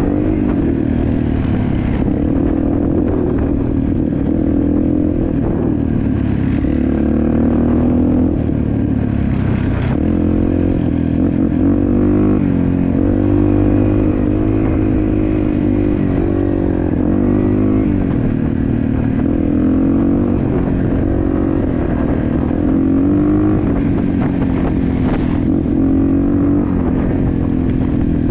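Off-road vehicle engine running under constantly changing throttle, its pitch rising and falling every few seconds as it is ridden over rough terrain.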